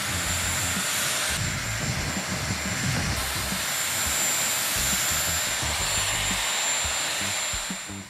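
Dyson Airwrap blowing hot air onto damp hair at the scalp: a steady rush of air with a thin, high-pitched motor whine held throughout.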